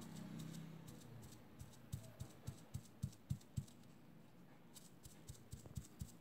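A paint-loaded sponge dabbed repeatedly through a plastic stencil onto T-shirt fabric, making faint dull taps at about three or four a second. The taps start about two seconds in, stop briefly a little past the middle, then carry on.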